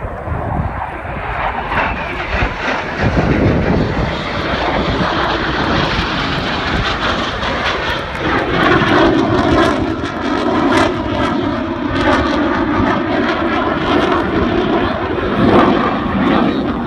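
F-16 fighter jets flying past, loud continuous jet engine noise. In the second half the sound thickens and takes on a swirling, sweeping quality as the jets pass.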